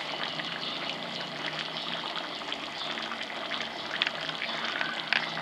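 Pan of thick aalu tama (potato and bamboo-shoot curry) simmering in a wok, bubbling with many small pops and crackles over a faint steady low hum, with a few sharper pops near the end.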